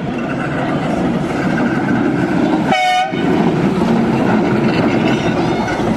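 Illuminated heritage tram passing close by, its steel wheels rumbling and clattering on the rails. About halfway through there is one brief, high-pitched tone.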